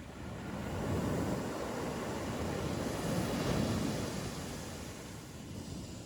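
Ocean surf: a wave breaks and its rushing wash swells in about a second in, stays strong through the middle and fades away near the end.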